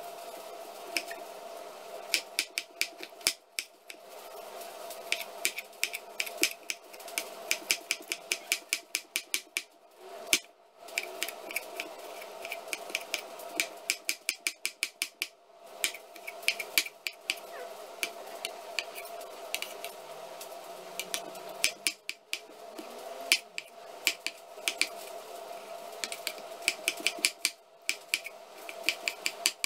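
Large kitchen knife chopping tomatoes on a wooden cutting board: quick runs of sharp knocks, several a second, in bursts with short pauses between them.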